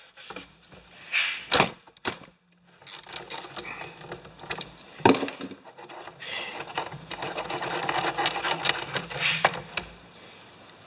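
A socket wrench unscrewing the spark plug from the hot leaf blower's small two-stroke engine: a few sharp clicks of the tool, then a stretch of rubbing and scraping with small ticks as the plug turns out of its threads.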